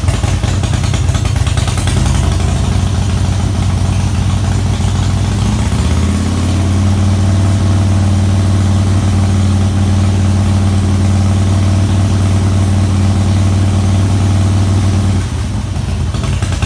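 2005 Harley-Davidson CVO Fat Boy's V-twin engine running just after start-up, then held at a steady higher speed of about 2000 RPM from about six seconds in, and dropping back to idle near the end. The engine is being held at 2000 RPM for a stator AC output test of the charging system.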